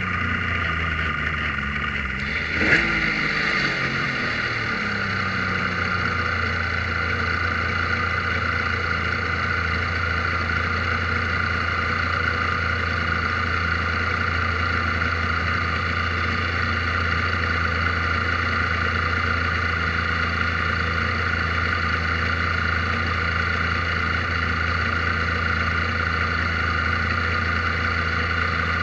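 Kohler engine of a Prototype 1 race car idling, heard from the open cockpit as the car rolls slowly to a halt. A short sharp knock comes about three seconds in, then the idle settles into a steady, unchanging note.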